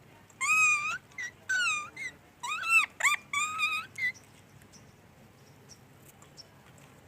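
Parrot giving a quick string of calls, some long and some short, each bending up and down in pitch, for about three and a half seconds before falling quiet.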